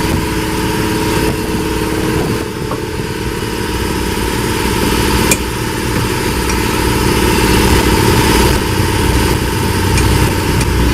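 Utility vehicle's small engine running steadily at idle, with a single sharp knock about five seconds in.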